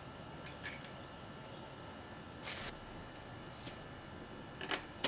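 Faint handling noise as the old EGR valve gasket is removed: a few light clicks, one short scrape about two and a half seconds in, and a couple more clicks near the end.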